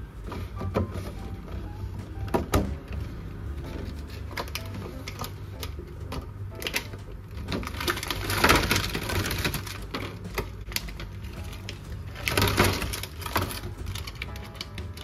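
Scattered light clicks and taps, with two longer rustling bursts about halfway through and near the end, over faint background music.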